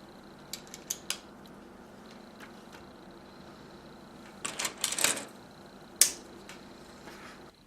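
Plastic LEGO pieces clicking as they are handled and snapped together: a few light clicks near the start, a cluster of rattling clicks about four and a half seconds in, then one sharp snap, over a faint steady hum that stops near the end.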